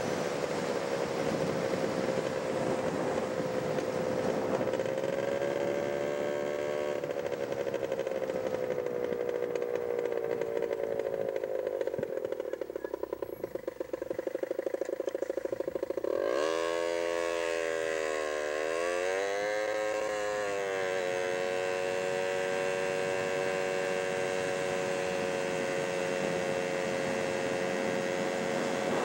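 A vehicle engine running while driving along the road, with a steady note. It eases off about twelve seconds in, revs up sharply near the middle, its pitch dropping and climbing again twice, then settles into a steady cruise.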